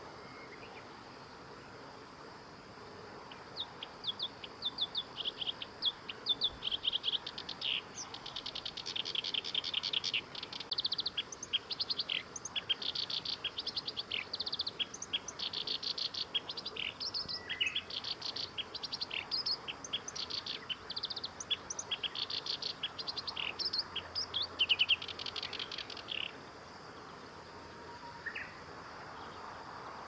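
Black-browed reed warbler singing: one long song of rapid, varied short notes that starts a few seconds in and stops a few seconds before the end.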